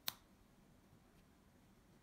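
A single sharp plastic click as small building-block pieces are pressed and snapped together, just after the start; otherwise near silence.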